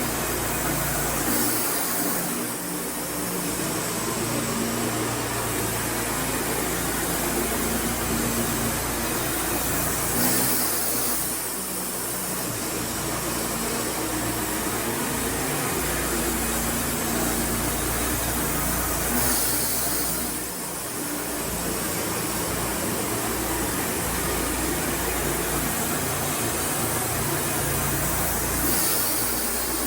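Wood-Mizer LT40 Super band sawmill running steadily while sawing pine boards, its engine humming, with a brief change in the sound recurring about every nine seconds.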